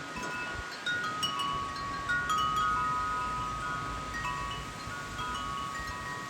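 Wind chimes ringing in gusty wind, with many clear notes struck irregularly, overlapping and lingering. Low wind rumble on the microphone underneath.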